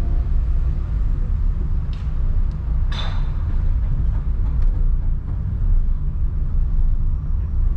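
Car driving on city streets: a steady low rumble of engine and road noise, with a few short sharp knocks, the loudest about three seconds in.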